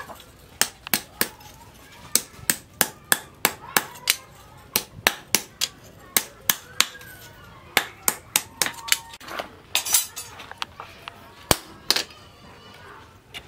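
Hand hammer forging a red-hot steel chisel blank on a steel anvil post: sharp metallic strikes about four a second in runs, with short pauses between them.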